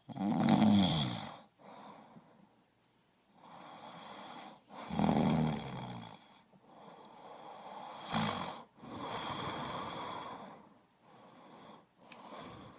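A person snoring: three loud rasping snores, with quieter breaths in between.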